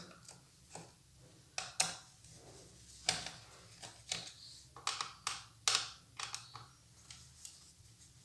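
Irregular light clicks and taps, about fifteen of them, as the screws are undone and taken out of the bottom cover of a Lenovo IdeaPad S145 laptop.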